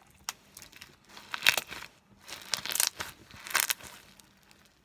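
Homemade beaded slime squeezed and stretched by hand, giving crackling, crunchy squelches in about three bursts, with a short click near the start.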